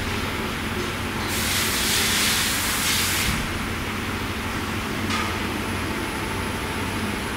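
Workshop machine tool running with a steady low hum. About a second and a half in, a hiss rises over it for about two seconds, and a short, fainter hiss comes near the five-second mark.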